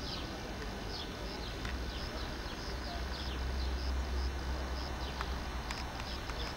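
Low rumble of a passenger train's coaches running away down the track, swelling a little midway. Over it come repeated short, high, falling bird chirps.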